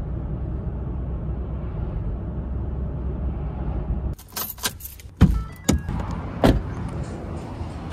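Steady road and engine rumble inside a moving pickup truck's cab. About four seconds in it cuts to keys jangling and a few sharp knocks and thumps at the truck's door.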